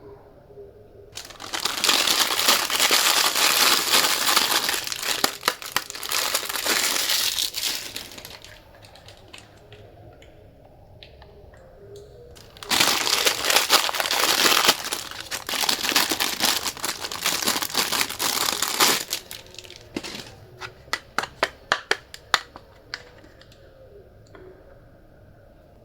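Crinkling of plastic packaging in two long stretches of several seconds each, then a quick run of sharp clicks.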